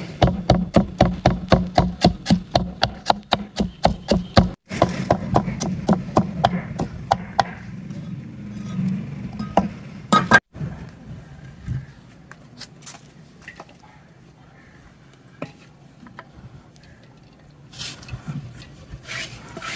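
Rapid, evenly spaced knocks, about four a second, for the first seven seconds or so, then only a few scattered knocks.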